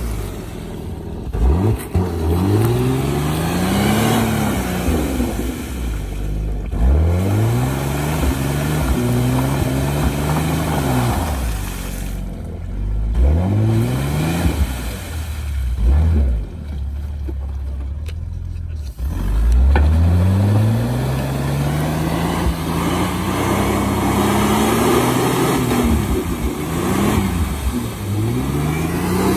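Jeep Grand Cherokee WJ engine revving up and falling back again and again as it spins its wheels in a deep mud puddle, trying to power out while stuck. Its rusty exhaust has been knocked off, so it runs without a muffler.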